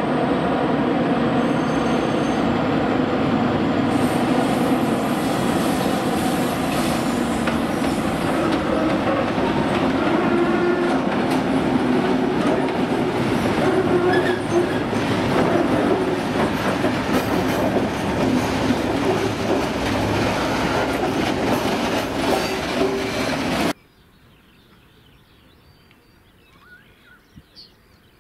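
Diesel freight locomotive running under load as it hauls a train of loaded coal wagons past, the wagons' wheels clattering and squealing on the curving track. Near the end the sound cuts off abruptly, leaving a quiet background with a few bird chirps.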